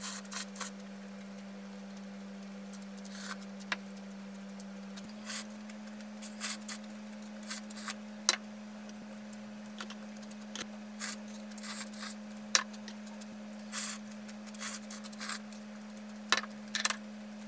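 Eating sounds of cold kimchi noodle soup: noodles slurped and broth sipped from a small bowl, with chewing, in scattered short bursts over a steady low hum.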